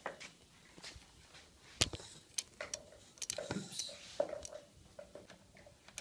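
Scattered light clicks and knocks of handling, with the camera being moved and parts of the test rig set up. No motor is running.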